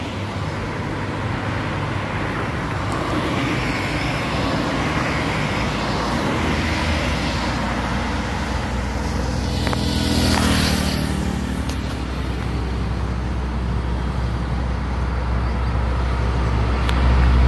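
Highway traffic passing: cars and motorbikes going by on the road, one passing close about ten seconds in, with the low engine rumble of an approaching truck building near the end.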